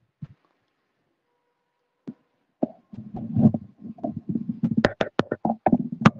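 Handling noise right at the recording device: a rapid run of clicks and knocks with rustling, starting about two and a half seconds in after a nearly quiet opening.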